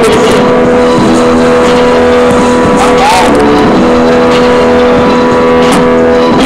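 Music from a rap single: a held synthesizer chord at a loud, even level with a few scattered percussive hits.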